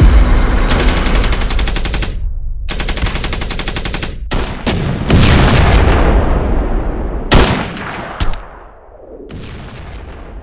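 Battle sound effects of gunfire: two long, rapid machine-gun bursts and a few single shots, followed by heavy bangs that ring and fade away.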